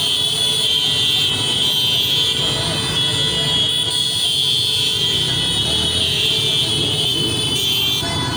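Many small motorcycles riding together at low speed, engines running, with horns sounding steadily over them.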